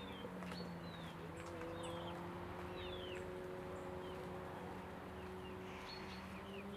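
Small wild birds chirping in short, quick falling notes, repeated every second or so, over a steady low drone.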